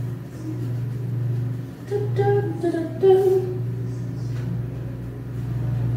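A woman humming a few short notes about two and three seconds in, over a steady low mechanical hum.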